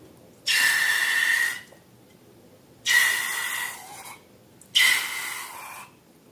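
Three bursts of rushing air, each about a second long and about two seconds apart. Each starts sharply and fades, with a faint whistle running through it.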